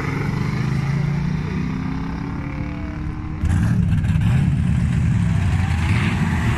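V8 engines at a drag race: the cars' engines pulling away under acceleration and slowly fading, then, about three seconds in, a sudden switch to a louder, rough V8 rumble from the Jeep Grand Cherokee's 5.2 V8 and a Ford Lightning pickup waiting at the start line.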